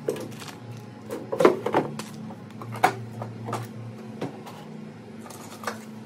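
Groceries being put away in a small open fridge: plastic produce bags rustling and items knocking and clacking onto the shelves in irregular handling sounds, the sharpest about a second and a half in and near three seconds, over a steady low hum.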